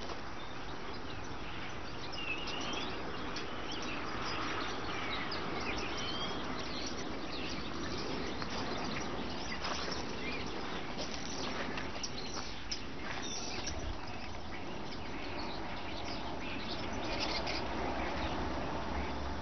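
Outdoor ambience of open country: scattered short bird chirps over a steady background hiss.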